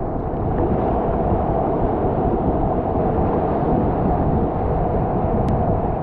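Strong wind buffeting an action camera's microphone: a loud, steady noise with no distinct events.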